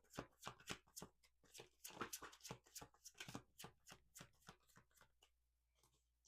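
Faint, rapid run of card clicks from a tarot deck being shuffled by hand. The clicks thin out and stop about five seconds in.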